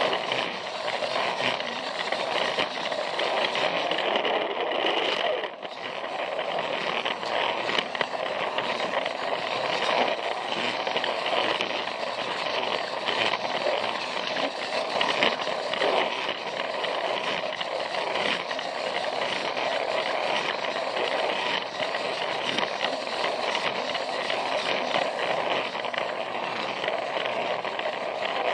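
Battery-powered Plarail toy train running on plastic track: a steady whir from its small motor and gears, with a rattle of the wheels clicking over the track joints, heard close up from on board. The sound dips briefly about five seconds in.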